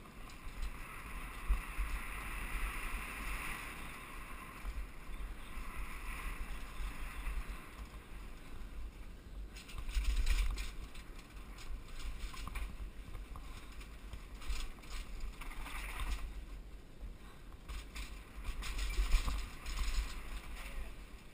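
Wind buffeting a helmet-mounted camera as a downhill mountain bike rolls fast over cobblestones, with a steady rumble and rattle from the bike. Heavier knocks from bumps come about ten seconds in and again near the end.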